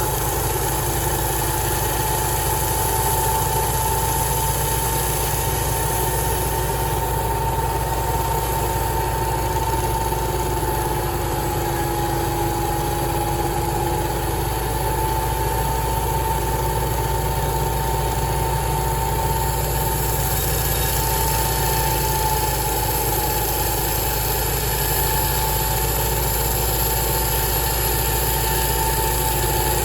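Sawmill machinery running steadily: an engine hum with a steady, slightly wavering high whine over it.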